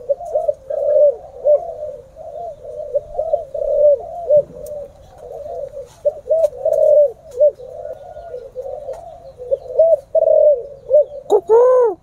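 Several captive spotted doves cooing at once, their short arched coos repeating and overlapping without a break. A louder, nearer bird starts cooing near the end.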